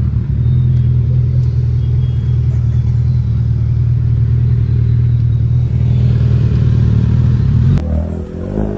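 Vehicle engine idling close by, a steady low rumble at constant pitch that cuts off abruptly about a second before the end.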